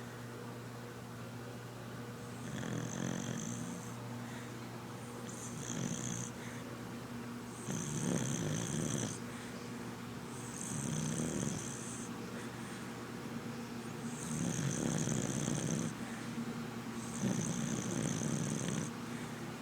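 A red cocker spaniel snoring in its sleep: six snores, one about every three seconds, each lasting a second or so, with a rasping hiss.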